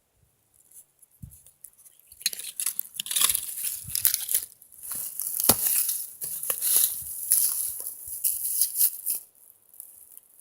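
Irregular rustling and crunching from someone moving about, like steps and brushing through dry leaves or brush, with one sharper crack about halfway through.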